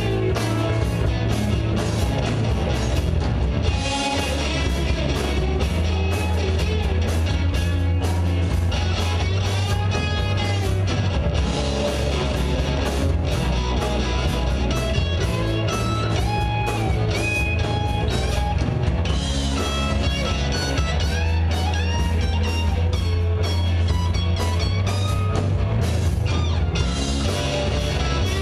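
Live rock band playing: a guitar-led rock song with steady bass and drums, the guitar playing bending melodic lines over it.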